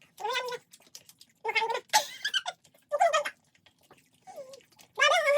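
A series of short, high-pitched whimpering cries, about six of them at irregular intervals over a few seconds.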